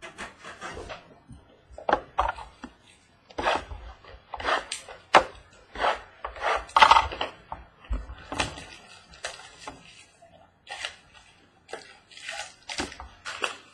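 A sealed trading-card box being unwrapped and opened by hand: irregular crinkling, rustling and knocks of plastic wrap and cardboard, in short sharp bursts.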